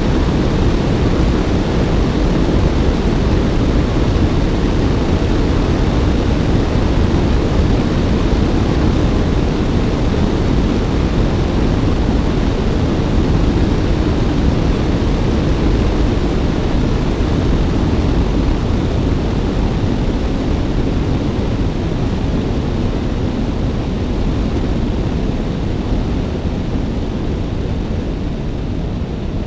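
Steady rush of wind buffeting the camera microphone on a moving Suzuki Bandit motorcycle, with engine and road noise underneath; it eases slightly near the end.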